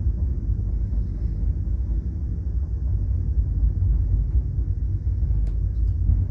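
Passenger train running along the track, heard from inside the carriage as a steady low rumble, with one faint click about five and a half seconds in.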